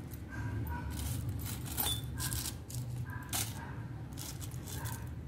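Clear plastic bag crinkling in several short rustles as it is handled, with small metal parts clinking inside it.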